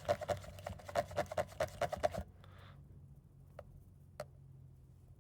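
Paint being stirred in a small plastic mixing cup: the stick ticks rapidly against the cup, each click with a hollow ring, and stops about two seconds in. Then two single faint clicks.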